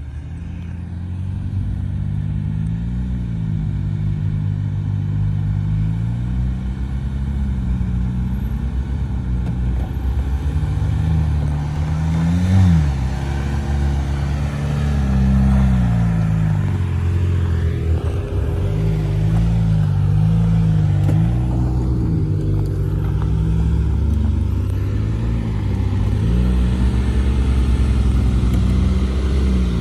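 Jeep Wrangler engine revving up and down as it crawls up a steep, rutted dirt trail, with a brief sharp rev about twelve seconds in.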